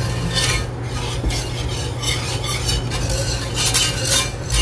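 Wire whisk scraping and swishing around a cast iron skillet, whisking broth into a butter-and-flour roux for gravy, in repeated irregular strokes about two a second. A steady low hum runs underneath.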